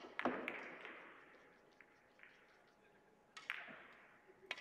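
Russian pyramid billiard balls clacking: the cue tip strikes the cue ball, which a moment later hits a cluster of balls with a sharp clack, followed by a few smaller clicks as balls collide. A couple more single clacks come about three and a half and four and a half seconds in, each with a short echo.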